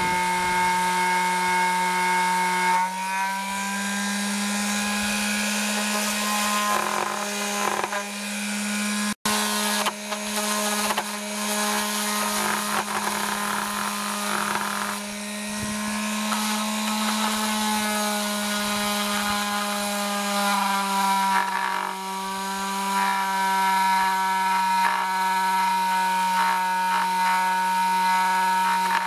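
Electric palm sander running against an epoxy-repaired wooden window sash: a steady motor hum with the rasp of the pad. The hum rises slightly in pitch about three seconds in and drops back near twenty-one seconds as the pressure on the pad changes, and it cuts out for an instant about nine seconds in.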